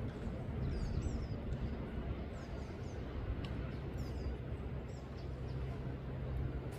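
Small birds chirping in short falling chirps, in three brief bursts, over a steady rushing background noise with a low hum.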